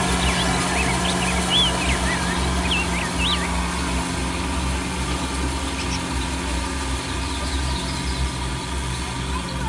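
Kubota DC-70 Plus rice combine harvester's diesel engine running steadily, with birds chirping over it during the first few seconds.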